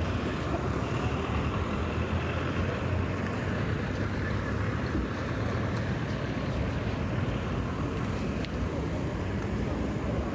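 Steady street traffic noise: cars passing close by, engines and tyres on the road.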